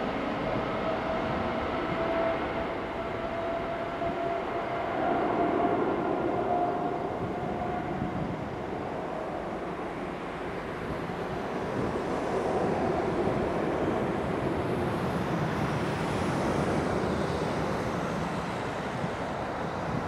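Jet airliner engines running at a distance: a steady rumble with a faint whine that drifts slightly in pitch and fades in the second half.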